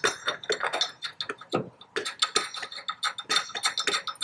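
Rapid, irregular metallic clicking and clinking as a nut and lock washer are spun by hand onto a 3/8-inch stainless steel bolt through a steel bumper mount bracket on a truck's tow hook.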